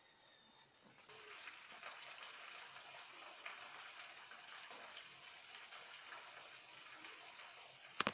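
Hot cooking oil sizzling in a frying pan, a steady hiss with small crackles that grows louder about a second in. A single sharp click near the end.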